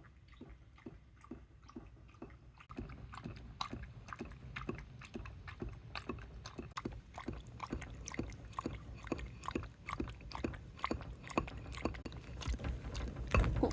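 An elderly Shiba Inu lapping water from a bowl, with wet tongue-laps at a steady rhythm of about three a second, getting louder about three seconds in.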